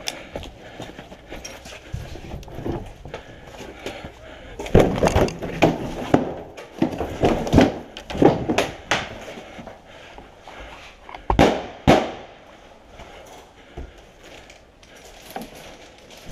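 Airsoft gunfire: scattered sharp pops in irregular clusters through the middle, with two louder cracks about half a second apart a little past the middle.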